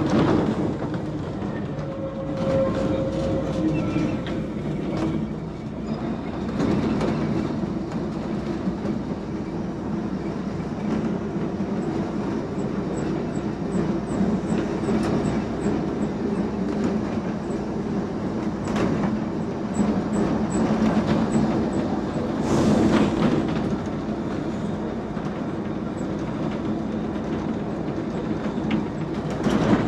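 Manx Electric Railway electric tramcar running along the line: a steady running noise of motors and wheels, with scattered clicks and knocks as it goes over the track, louder for a moment about two-thirds of the way through.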